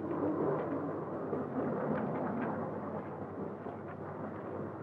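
Steady rushing roar of aircraft cabin noise inside the zero-gravity training airplane, flown on parabolic arcs to give brief weightlessness.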